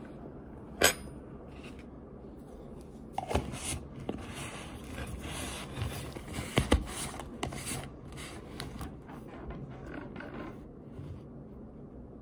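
A plastic Argo cornstarch container being handled, its lid worked, making a run of rubbing and scraping with sharp clicks. The noise is busiest from about three to eight seconds in.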